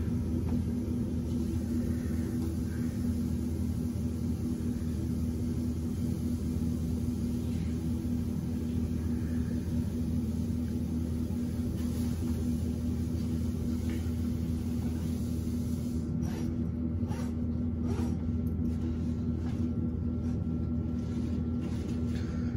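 Steady low machine hum and rumble with a strong constant tone, and a few faint clicks near the end.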